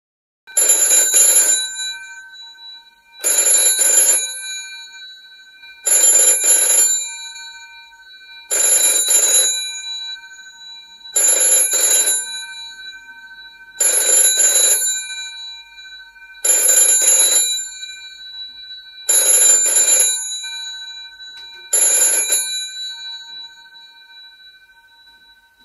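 Bells of a 1960s GPO 706 rotary dial telephone ringing for an incoming call: nine bursts of ringing, each a little over a second long, about every two and a half seconds, with the bell tone lingering between them. After the last ring the bells fade away near the end.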